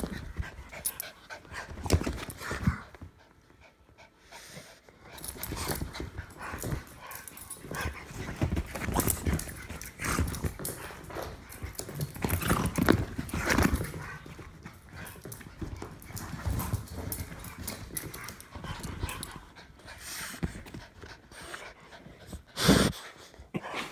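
A Jack Russell Terrier mix and an English Bulldog play-fighting: irregular scuffling and scrabbling with panting, and one loud bump near the end.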